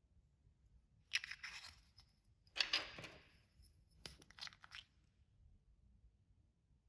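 Hands squishing and stretching clear slime with glitter mixed in: three short bursts of crackling and popping.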